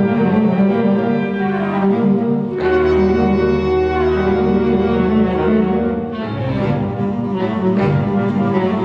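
Symphonic band playing with an alto saxophone soloist. A low note is held in the bass from about two and a half to six seconds in.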